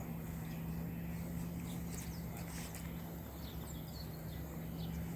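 Small birds chirping in short, quick calls, mostly in the second half, over a steady low hum.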